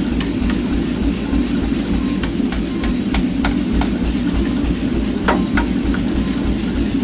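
A steady machine drone in a blacksmith's workshop, with scattered light metal taps and clinks over it. One clink rings briefly a little after five seconds in.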